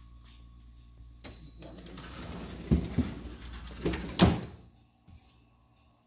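Bottom freezer drawer of a Samsung Family Hub French-door refrigerator sliding shut on its rails, with a few knocks and a loud thump as it closes about four seconds in.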